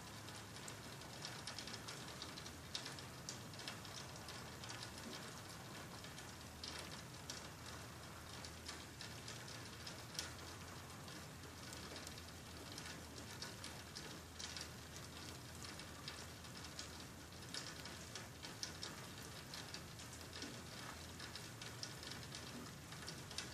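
Faint steady rain falling, with many small scattered ticks of drops landing.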